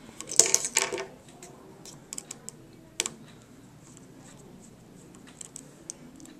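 Small sharp clicks and taps of a screwdriver and tiny screws being handled while an iPhone 3GS is taken apart: a quick cluster about half a second in, a few more around two seconds, a single sharp click at three seconds, then faint ticks near the end.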